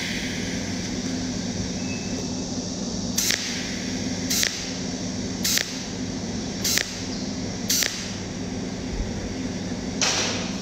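Cold welding machine firing pulse after pulse through its tungsten electrode, laying overlapping weld dots: a short crackling zap about once a second, six in all, over a steady hum.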